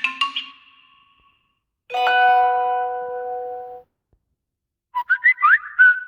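Samsung Galaxy S5 alert tones played one after another. A chime fades out at the start. About two seconds in, a single bell-like tone rings for nearly two seconds. Near the end comes a quick run of short, rising, chirping tones.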